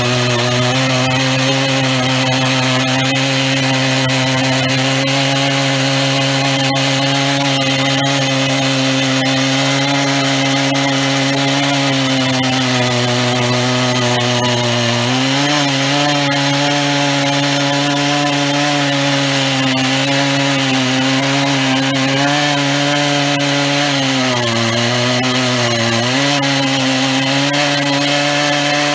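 Stihl MS 880 single-cylinder two-stroke chainsaw running at high speed in a chainsaw mill, ripping lengthwise through an oak log. The engine holds a steady pitch, dipping briefly under load about halfway through and again a few seconds before the end.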